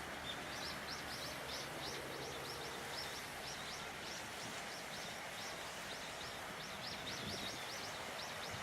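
Small birds calling: a quick series of short, high chirps, several a second, over a steady background hiss.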